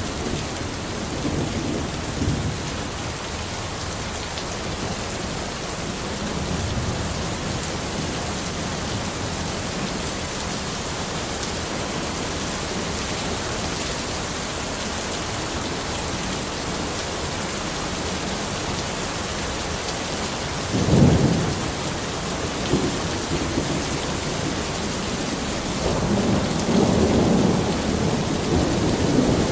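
Steady rain falling in a forest, an even hiss throughout. About two-thirds of the way through a short, loud rumble of thunder breaks in, and near the end a longer rumble of thunder swells and rolls on.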